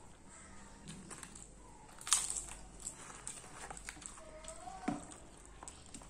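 Close, wet eating sounds: fingers squishing cooked rice and sambar on a steel plate, with chewing and crunchy bites of papad; the loudest crunch comes about two seconds in. A brief rising hum follows a little past four seconds.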